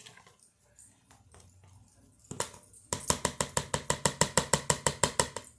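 Spoon stirring sauce briskly in a bowl: after a single knock, a rapid, even clatter of about ten strokes a second starts about three seconds in and lasts a couple of seconds.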